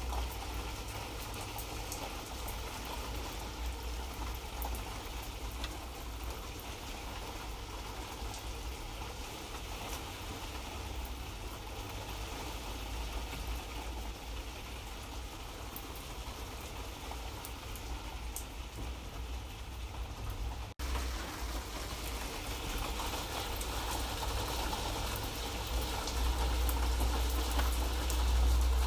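Light rain falling steadily, with scattered drops ticking over an even hiss and a steady low rumble underneath. The sound cuts out for an instant about two-thirds through and grows a little louder near the end.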